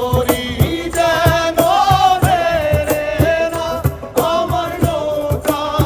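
Bengali folk song: a solo voice singing a long, wavering melody over a steady drum beat.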